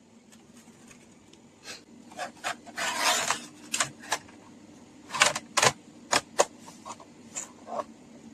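Irregular clicks, taps and a short scrape of small metal screws and a screwdriver on the plastic and metal of a laptop's drive bay as the SSD is screwed in. The loudest clicks come in a cluster in the second half.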